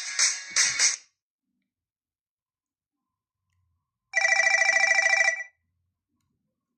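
LG KE970 mobile phone ringtone: after the last notes of a song ringtone stop within the first second and a few seconds of silence, a single burst of fast electronic trilling imitating a telephone bell sounds for just over a second, then cuts off.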